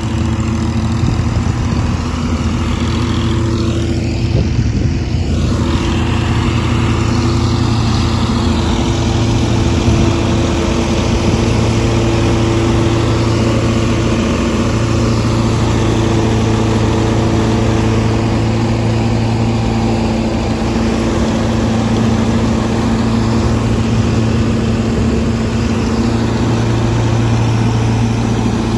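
Farmtrac tractor's diesel engine running steadily under load, driving a straw reaper that cuts wheat stubble and blows the chopped straw into a trolley; the engine's steady hum sits under the machine's continuous whirring noise.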